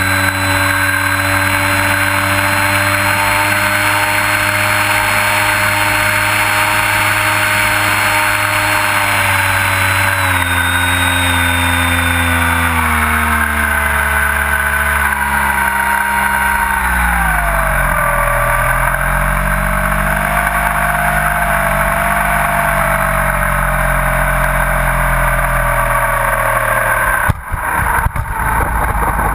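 Motor and propeller of a radio-controlled Trojan T-28 model airplane heard from a camera mounted on the plane: a steady running tone that falls in pitch over several seconds past the middle as the throttle is pulled back, then holds low. Near the end the wheels touch down, with a few knocks and a rough rumble of rolling on asphalt.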